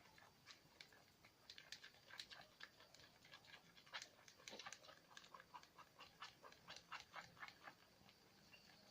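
Faint, irregular wet clicking and squishing, several clicks a second, from a runny dish-soap-and-salt slime mixture being stirred.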